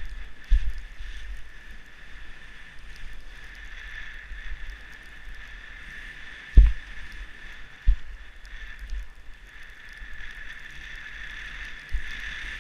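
Skis sliding through powder snow: a steady hiss of moving skis, with low rumble and a few low thumps. The loudest thump comes about six and a half seconds in, and weaker ones come near the start, about eight seconds in and near the end.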